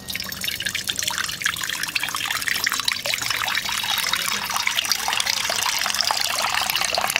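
Water poured in a steady stream into a shallow metal pan, splashing and trickling as the pool spreads across the metal.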